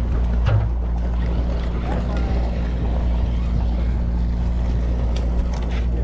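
Steady low drone of the sportfishing boat's engine running, with a few light clicks and knocks near the end.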